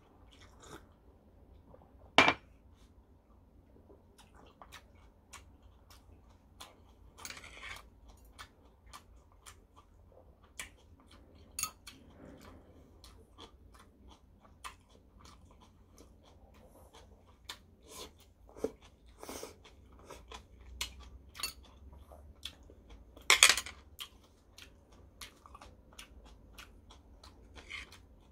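Close-up chewing and mouth sounds of a person eating, with frequent small clicks of chopsticks and dishes. A sharp knock about two seconds in and a louder clatter about twenty-three seconds in.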